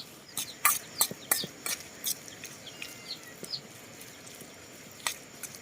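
Birds chirping in short, repeated falling notes, over a run of sharp clicks and knocks that is densest in the first two seconds, with one more about five seconds in.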